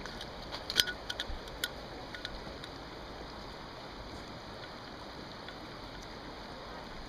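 Metal padlocks clicking and clinking against each other and their fittings as a hand handles them: a quick run of sharp clicks in the first couple of seconds. After that there is only a steady background hiss.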